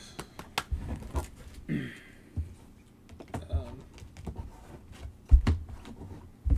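Trading cards and rigid plastic card holders being handled on a table: scattered light clicks and taps, with a heavier thump a little after five seconds in.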